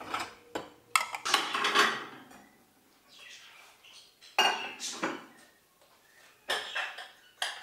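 Dishes clinking and clattering as they are lifted out of a dishwasher rack and set down on a counter, in several separate bursts with short pauses between.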